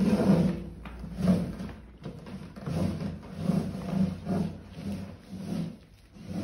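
Puppies scrambling through a cardboard box and a fabric play tunnel: irregular soft bumps and scuffs of cardboard and paws, about one every half second to second.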